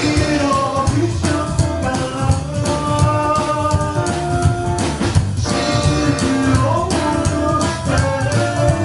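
Live rockabilly band playing a song: a lead vocal sung over drum kit and guitar with a steady beat.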